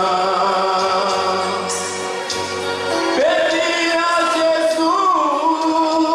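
Man singing a gospel song into a microphone over instrumental backing, holding long notes; his voice slides up into a new note about three seconds in and wavers around five seconds.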